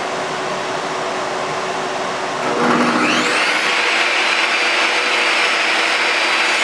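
A steady noise, then about two and a half seconds in a table saw is switched on: its motor winds up in a rising whine and settles at full running speed, with no wood yet being cut.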